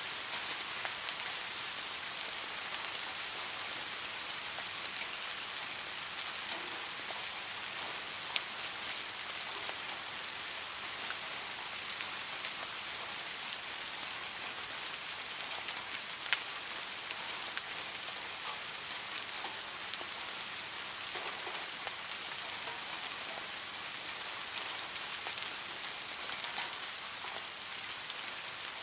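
Steady rain falling and pattering on a surface, a continuous hiss with many individual drop ticks and a few louder drips.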